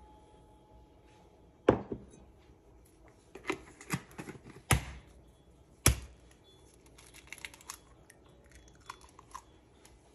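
Kitchen handling sounds: three sharp knocks, with lighter clicks and rustling between them and fainter clicks toward the end.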